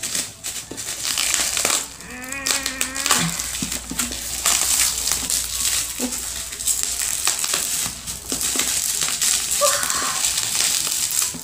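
Plastic bubble wrap crinkling and crackling as it is handled, squeezed and pulled off a boxed item, with a dense run of small irregular crackles.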